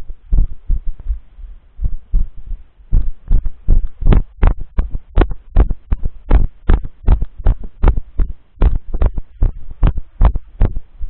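A person's footsteps walking briskly on grass, about two and a half steps a second, heard as dull thumps through a camera worn on the body.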